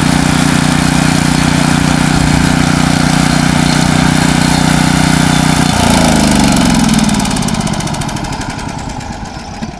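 Briggs & Stratton 344cc single-cylinder engine on a pull-behind rough-cut mower running steadily, then shut off about six seconds in. Its pitch falls and the sound fades as the engine and blades wind down.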